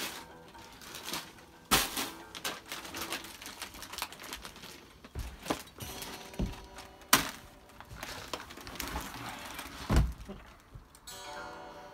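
Plastic snack bags and cardboard snack boxes being tossed onto a sofa and handled: crinkling packaging broken by sharp knocks and thuds, the loudest about two, seven and ten seconds in.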